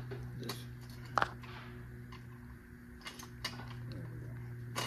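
Scattered sharp metallic clicks and clinks of a hand tool and parts being worked on an aluminium V12 cylinder head with its camshafts fitted. The loudest click comes about a second in and another near the end, over a steady low hum.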